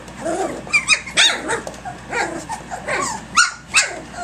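A litter of three-week-old Doberman puppies play-fighting, with many short high-pitched yelps and squeals mixed with small puppy growls. The sharpest yelps come about a second in and twice near the end.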